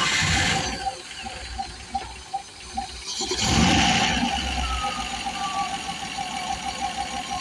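Rover V8 engine, hot, catching and running with one rev-up about three seconds in, under a regular pulsing hiss-like noise from the head area at the front of the left-hand bank. It sounds like escaping gas, which the owner cannot yet explain after fitting 3.9 cylinder heads.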